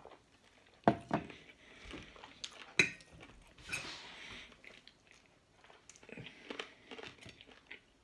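Close-up eating sounds: several sharp knocks and clinks of a drinking glass and a metal fork against a plate and table, with chewing in between.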